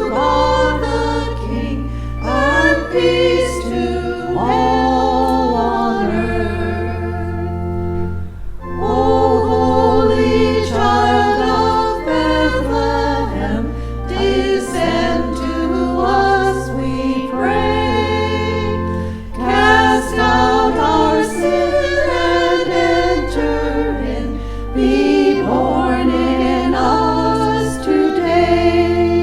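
Church choir singing in harmony over long held low bass notes from the accompaniment, which change every second or two. The sound dips briefly about eight seconds in, between phrases.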